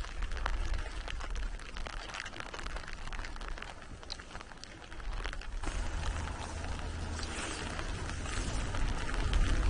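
Light rain pattering, with many small drop ticks, and wind rumbling on the microphone that grows stronger a little over halfway through.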